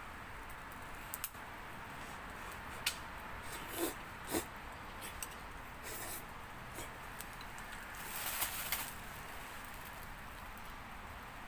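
Wood fire burning in a small camp stove, crackling with scattered sharp pops, a couple of louder crackles about four seconds in and a short run of louder crackling near eight seconds.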